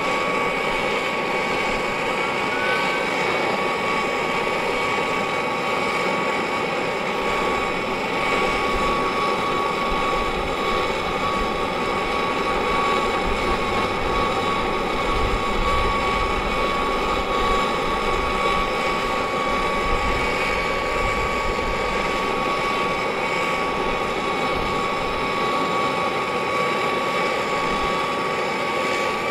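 Brass gas torch burning steadily, its flame on a small crucible to melt down silver powder into a bead. A steady whistle runs through the flame's rush.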